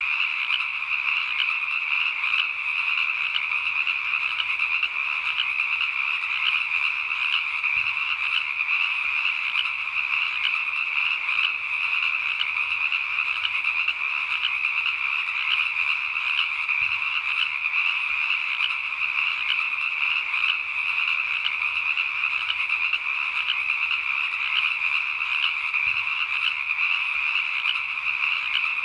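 A dense, steady chorus of frogs calling at night, unbroken throughout.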